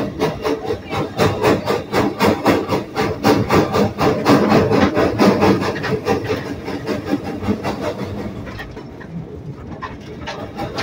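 A 1937 Porter 0-4-0T saddle-tank steam locomotive working under way, its exhaust chuffing in a quick, even beat that eases off about eight seconds in.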